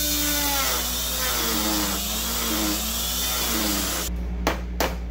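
Handheld rotary tool with a cutting wheel running and grinding, its whine wavering in pitch as it bites, cutting out small grooves that block the power-window motor's gear. About four seconds in it stops, and sharp taps follow, about three a second.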